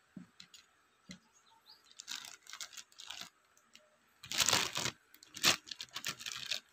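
Clear plastic packaging bags crinkling and rustling as they are handled, in uneven bursts with the loudest rustle a little past halfway. Two light knocks come near the start.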